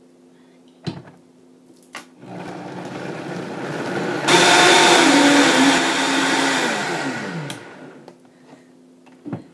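Countertop blender crushing frozen cherries with lime juice and honey. After a couple of clicks as the jar goes onto the base and the blender is switched on, the motor builds up, jumps to full speed about four seconds in, then is switched off and winds down with a falling pitch.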